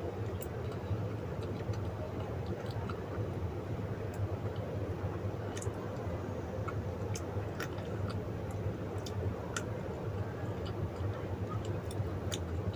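Closed-mouth chewing of a mouthful of natto (fermented soybeans): scattered small, wet mouth clicks over a steady low background hum.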